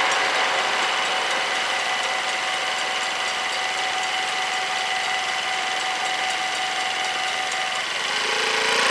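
Dutch level-crossing warning bells ringing steadily as the barriers lift after the train has passed, stopping shortly before the end. Just after, a waiting vehicle's engine revs up to pull away.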